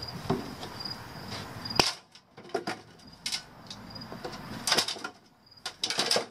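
Sheet-metal panel of a furnace heat exchanger being handled and set onto the assembly: one sharp metal clank about two seconds in, then scattered clicks and knocks as it is pressed into place. Crickets chirp faintly throughout.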